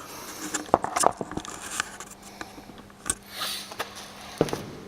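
Scattered metallic clicks and knocks as motorcycle rear wheel parts and the drive chain are handled and fitted during reassembly, with a brief rustle a little after three seconds in.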